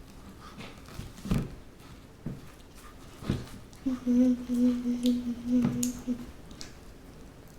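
A person humming one steady "mmm" note for about two seconds, midway through, with a few soft knocks before it.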